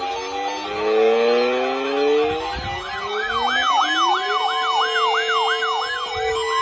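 Electronic siren sounds: several overlapping tones rise together, then from about three seconds in a fast wail sweeps up and down about three times a second over a steady held tone.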